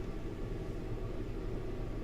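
Steady low hum and hiss of room background noise, with no distinct events.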